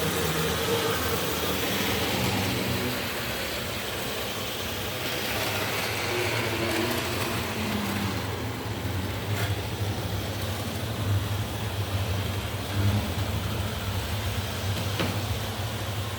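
Model electric train running on its track, its newly fitted motor humming steadily, with a few faint clicks along the way.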